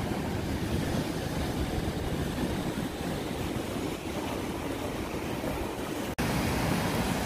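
Wave-pool wave breaking, its whitewater rushing in a steady wash, with a brief gap about six seconds in where the recording cuts.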